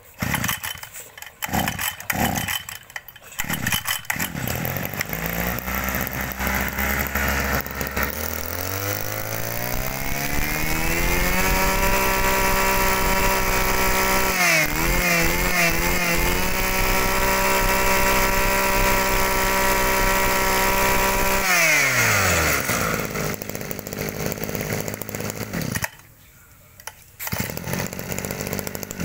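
Mitsubishi TL23 23 cc two-stroke brush-cutter engine starting after a few knocks and idling, then revving up slowly to a steady high speed that wavers briefly. Near the end it drops back to a rougher, lower running; the engine starts and runs normally.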